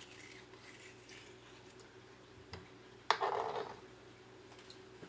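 Kitchen knife slicing a cucumber against a plastic cutting board: soft, faint cutting clicks, then a sharp clack about three seconds in followed by a brief clatter.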